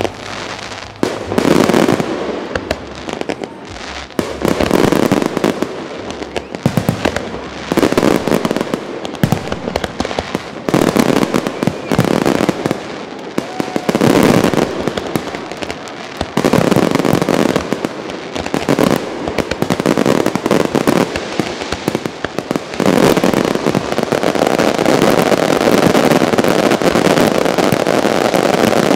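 Fireworks display: aerial shells bursting in quick volleys of sharp bangs and crackle, one cluster after another. About three-quarters of the way through, the bursts merge into a dense, unbroken barrage.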